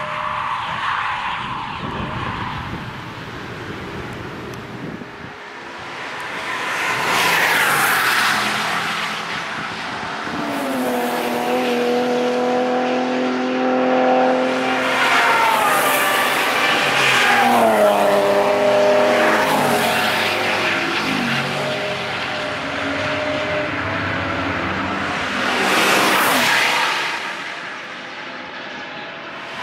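Several track cars passing one after another at speed, engines revving hard, their pitch rising and dropping through gear changes. The last pass, near the end, is a BMW M3 E92's V8.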